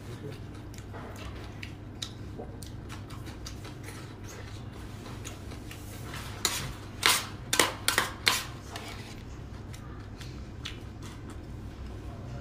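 A metal spoon clinking and scraping against a small metal serving pan while someone eats, over a steady low hum. A cluster of louder sharp clinks comes about seven to eight seconds in.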